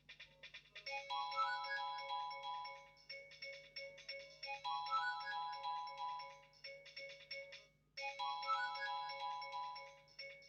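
Polyphonic mobile-phone ringtone, a Fly SX240 tone played through an Explay SL240's speaker. A short electronic melody with a quick rising run of notes over steady pulsing notes loops about every three and a half seconds, starting about a second in.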